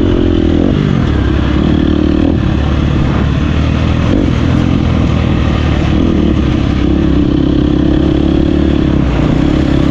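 Dirt bike engine running loud and steady on a motocross track.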